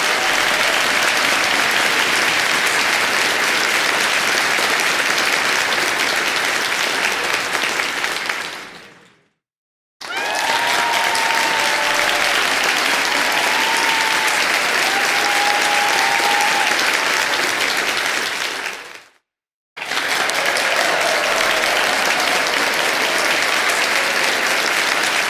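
Crowd applauding and cheering, with whistles and shouts over dense clapping, in three separate takes. Each take fades out and breaks off briefly before the next begins, about nine seconds and nineteen seconds in.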